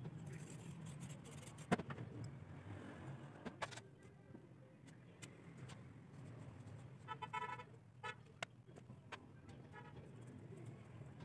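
Small metal carburetor parts clinking against a metal basin as they are cleaned: a sharp clink a little under two seconds in, and a cluster of short ringing metallic clinks around seven seconds, with a few more after. A faint steady low hum runs underneath.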